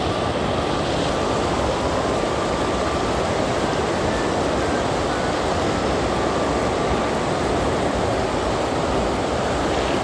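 Mountain stream running high after rain, pouring over a low weir: a steady rush of water.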